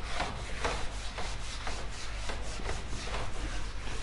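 Hand-held eraser wiping marker writing off a whiteboard in quick back-and-forth rubbing strokes, about two to three a second.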